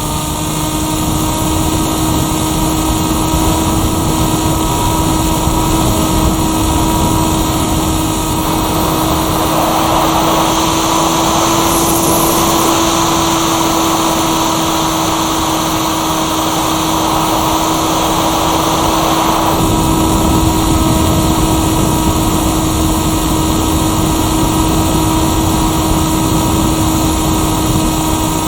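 Motor and propeller of a Firstar 2000 radio-controlled motor glider, heard from a camera mounted on the plane: a steady hum under a rush of air. The rush grows louder and brighter for about ten seconds in the middle.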